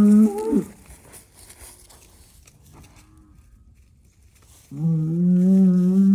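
Murray Grey bull bellowing, in two long, loud moos. The first ends about half a second in with a quick drop in pitch. The second, fairly level call starts near the end.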